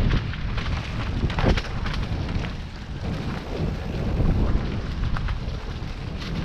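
Wind rushing over a helmet camera's microphone and mountain bike tyres rolling over a leaf-covered dirt trail on a fast downhill descent, with scattered sharp rattles and knocks from the bike over bumps.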